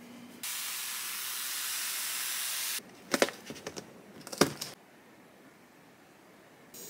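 A spray bottle sprays water in one long steady hiss over a tray of moss, then a clear plastic lid is pressed onto the plastic tray with a run of plastic clicks and snaps, two of them sharp and loud.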